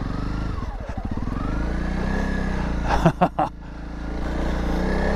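Honda CRF300 Rally's single-cylinder engine riding along a rough lane, its revs rising after about half a second and holding. About three seconds in, a few sharp thuds, then the engine eases off briefly before picking up again.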